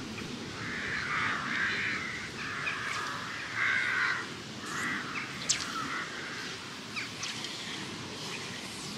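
Crows cawing: a series of harsh caws over the first six seconds or so, with a few short clicks later.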